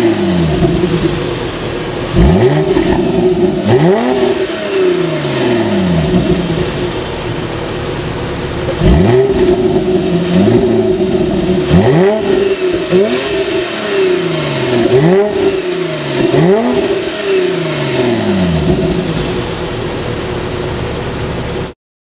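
2011 Porsche 911 Carrera GTS (997) 3.8-litre flat-six with a Fabspeed X-pipe, idling and blipped about a dozen times. Each rev climbs quickly, then sinks back to idle. The sound stops abruptly near the end.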